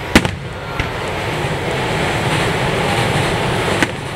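Fireworks: the sharp bang of an aerial shell bursting just after the start, a smaller pop about a second in, and another bang near the end, over a steady rumbling hiss that swells through the middle.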